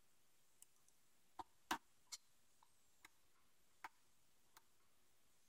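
Faint, scattered clicks of a hook pick working the pins of a Kwikset 5-pin pin-tumbler lock under tension, about six of them, the loudest a little under two seconds in. One of these may be a pin setting as the core drops out of its false set.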